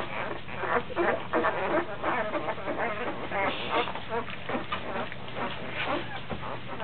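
Newborn puppies squeaking and squealing in short high calls, several a second, as they crawl over each other to nurse; the squeals come from a pup still hunting for a teat.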